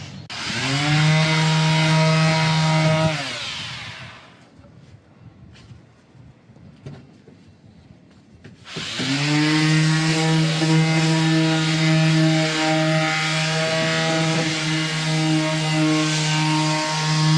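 Electric woodworking power tool working timber in two runs. A short one lasts about three seconds, then after a pause a longer one starts about nine seconds in. The motor winds up to a steady whine at the start of each run, with a hissing cutting noise over it, and the first run winds down at its end.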